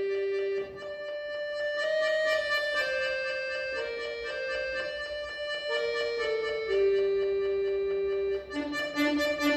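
Button accordion played solo: a slow melody of held notes over a sustained tone, moving into quicker short notes near the end.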